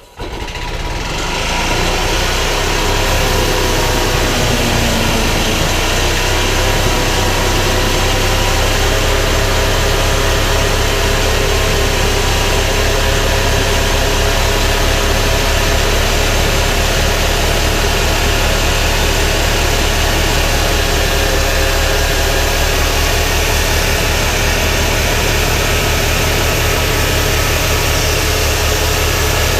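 Gas engine of a homemade sawmill starting up, coming up to speed over about two seconds, then running steadily with an even low pulse.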